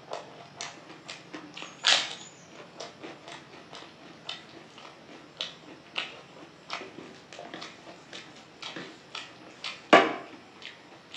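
Close-up eating sounds of a person eating dal and rice by hand: wet chewing and lip smacks, a few a second, with two louder sharp sounds, one about two seconds in and one near the end.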